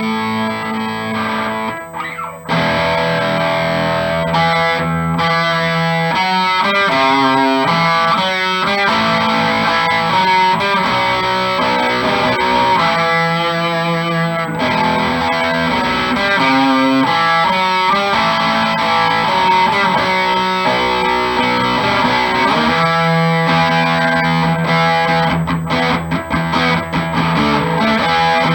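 Distorted electric guitar from a G&L Legacy Tribute with a Seymour Duncan Little '59 mini humbucker in the bridge position: held chords and quicker riffs, with a brief break about two seconds in and again midway. The tone is bright.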